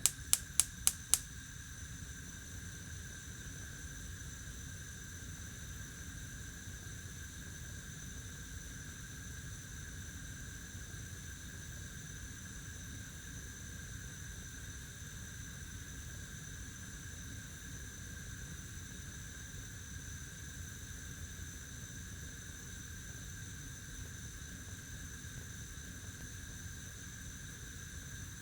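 Gas stove burner being lit: the igniter clicks rapidly, about six times in the first second, and the burner catches and burns steadily with an even low rumble and hiss for the rest.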